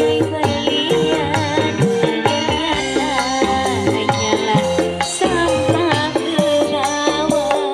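Music with quick percussion and a bending melodic line, played back through Range SR215 passive 15-inch loudspeakers as a sound test of the system.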